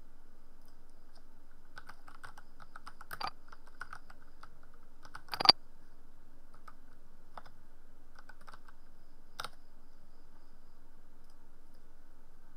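Typing on a computer keyboard: a quick run of keystrokes about two seconds in, one much louder key strike a little after five seconds, then a few scattered single clicks. A faint steady hum sits underneath.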